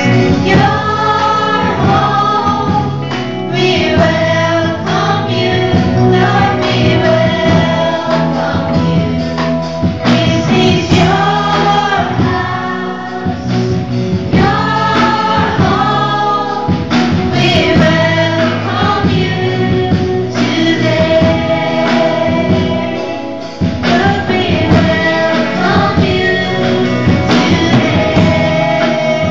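Live praise band playing a worship song: a woman sings lead into a microphone over keyboards, drum kit and guitar, with other voices singing along.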